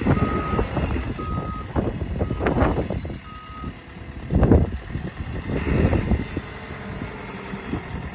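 Reversing alarm on a 2020 JCB Hydradig 110W wheeled excavator beeping about once a second, stopping about four seconds in. Under it the machine's diesel engine runs with an uneven low rumble.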